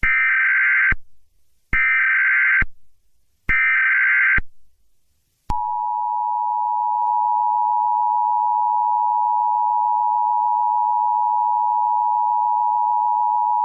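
Emergency Alert System alert: three short bursts of the digital SAME header, a screechy data warble about a second each, then the EAS two-tone attention signal, a steady harsh tone held for about eight seconds.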